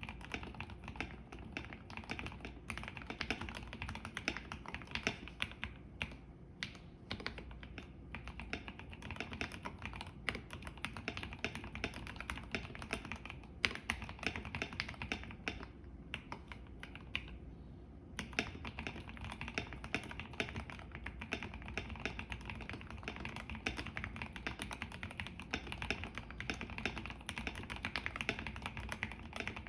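KBD75 V3.1 mechanical keyboard with an aluminium plate and Gateron CJ linear switches being typed on steadily, fast runs of key clacks with a couple of brief lulls.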